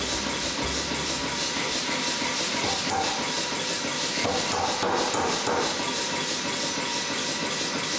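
Power hammer forging a glowing steel hammer head: the machine runs with a steady, loud hiss and clatter, and its dies strike in a quick, even beat.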